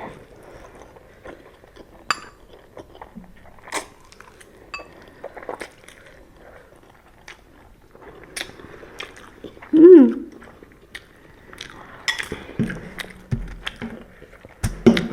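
Close-up eating sounds of ramen noodles being chewed, with scattered light clicks and clinks of utensils against a bowl. About ten seconds in there is one short, loud voiced sound from the eater.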